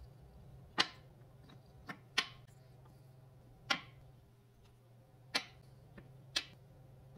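Wooden puzzle pieces clacking as they are set and tapped into their wooden tray: about six sharp knocks, irregularly spaced a second or so apart, over a low steady hum.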